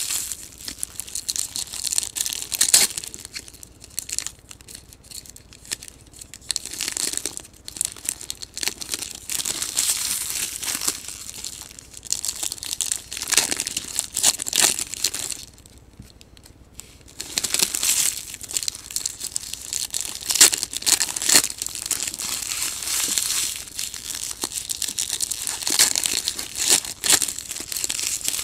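Foil trading-card pack wrappers being torn open and crinkled by hand, in irregular bursts of rustling with a short lull about two-thirds of the way through.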